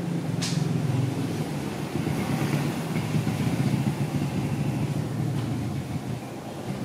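An engine running steadily nearby with a low hum.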